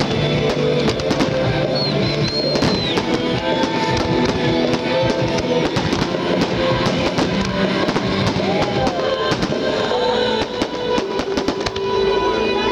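Fireworks show: a rapid, continuous run of bangs and crackles from bursting fireworks over loud accompanying music with a drum beat.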